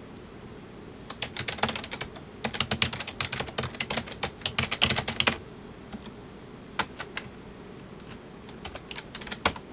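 Typing on a full-size PC keyboard: a fast run of key clicks for about four seconds, then a pause with a few single keystrokes and a short burst near the end.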